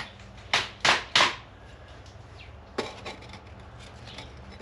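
A few sharp knocks of hand tools working on the vehicle's rusted bolts: three in quick succession about half a second in, then one more near three seconds.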